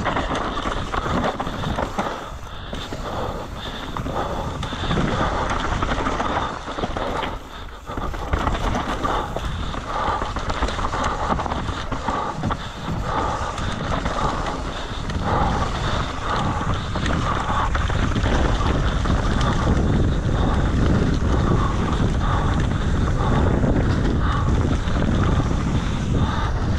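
Mountain bike descending a rough trail at speed: a continuous, uneven rush of tyre and bike rattle noise with wind buffeting the microphone.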